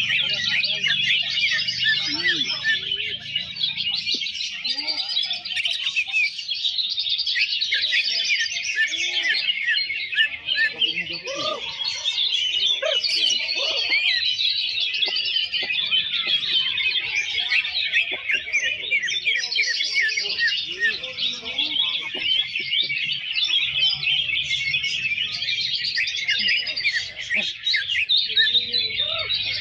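Many caged green leafbirds (cucak ijo) singing at once in a dense, unbroken chorus of fast chirps and trills, with no single bird standing out.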